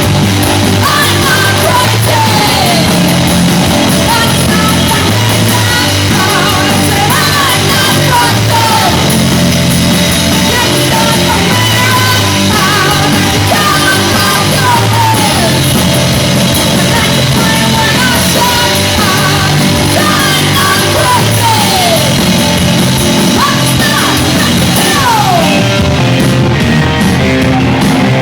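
Rock band playing loudly through a PA, with pitched notes sliding downward every few seconds over a steady bass line.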